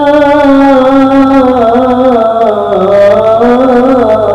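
Male voice singing a long, drawn-out melismatic line of sholawat (Islamic devotional song). The pitch slides down about halfway through and climbs back near the end.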